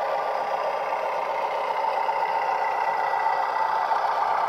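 Diesel railcar engine sound from a LokSound V5 sound decoder, played through the small speaker of an OO-gauge GWR AEC railcar model as it runs along the track. The engine sound runs steadily, with most of it in the middle range and little deep bass.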